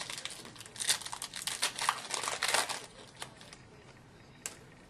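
Crinkling of a hockey card pack's wrapper as it is handled, in dense crackly runs for about two seconds. A single sharp click follows near the end.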